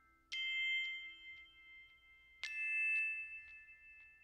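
Background music of bell-like chime notes: two struck notes about two seconds apart, each ringing on and slowly fading.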